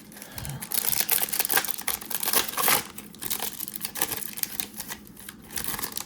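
Trading cards being handled, with rapid crackling clicks and rustling that is loudest for a couple of seconds near the start.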